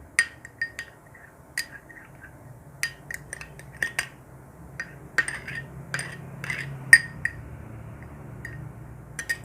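A spoon stirring grated shallot and honey in a dish, clinking against its side in irregular, ringing taps. The clinks come often for about seven seconds, then stop except for one near the end.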